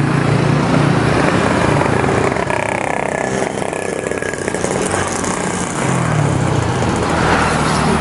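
Road traffic: small motorcycles and cars passing close by, their engine sound swelling and fading as they go past.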